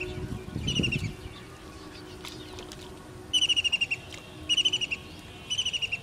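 A bird calling in short, fast trills of about ten sharp high notes each, four trills, the last three about a second apart.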